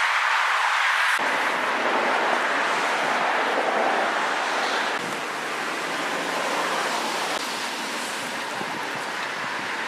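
Steady rushing noise, changing in tone abruptly about a second in and again about five seconds in.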